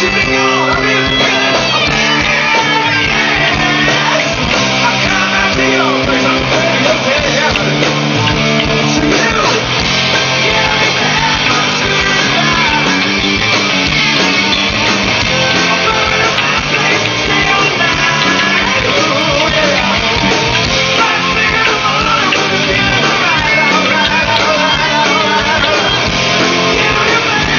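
Live rock band playing loud, steady rock music with electric guitars.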